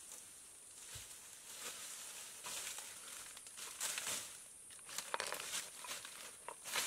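Footsteps rustling and crackling through dry leaves and forest undergrowth, uneven and growing busier, with a few sharp snaps in the last couple of seconds.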